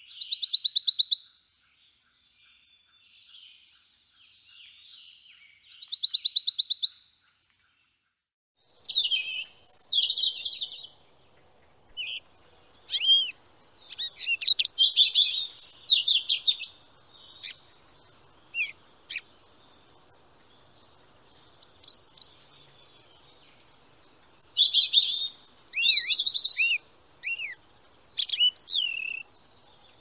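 Songbirds singing: two loud, fast buzzy trills near the start, then a varied run of high chirps, whistles and short downslurred notes from about nine seconds on.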